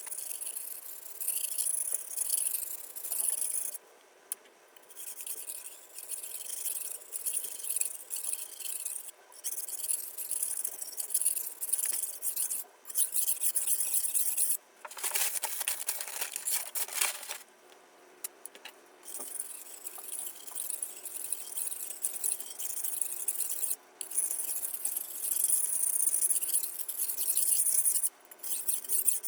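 Steel knife blade scraped in repeated strokes across a whetstone, a gritty hiss broken by short pauses between strokes. About halfway through, one fuller, louder scrape lasts a couple of seconds.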